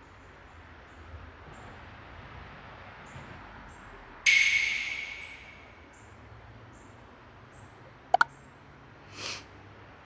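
A single bright chime sound effect strikes about four seconds in and rings away over a second or so, over a faint steady background hiss. Two tiny clicks come near the end.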